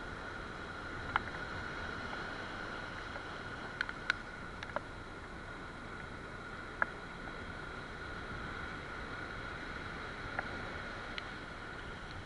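Steady hiss of surf washing over rocks, with a constant faint high whine under it and about eight scattered sharp ticks.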